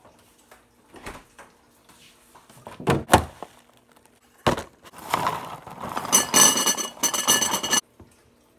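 Small shredded-wheat cereal squares poured from the box into a bowl, a dense rattling clatter of about three seconds that stops sharply, after a few knocks and a thump of things being handled.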